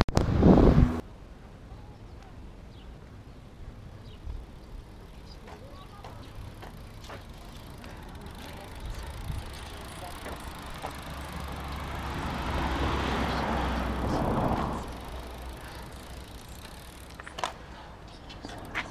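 Wind buffeting the microphone of a moving camera for about a second, cut off suddenly, then quiet outdoor background with a few faint clicks and a swell of noise lasting about three seconds in the second half.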